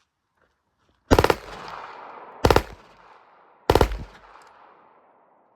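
Three quick strings of rapid rifle fire from a rifle fitted with a super safety trigger, each string a fast run of a few shots, about a second and a quarter apart, with range echo trailing after each. The rapid fire comes from the super safety trigger, not from full auto.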